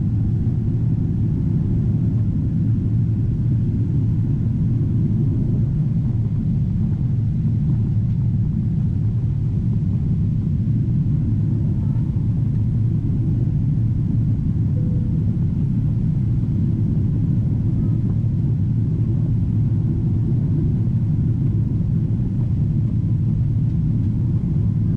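Steady low rumble inside the cabin of a Boeing 777-300ER, from its GE90-115B engines and the airflow around the fuselage, at an even level throughout.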